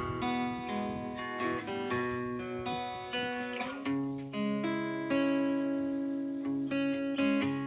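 Solo Taylor acoustic guitar playing a slow picked chord pattern as the instrumental intro of a song, with no singing yet.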